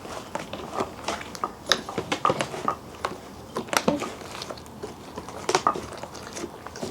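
Irregular clicks, taps and small knocks of objects being handled, spaced unevenly with short gaps.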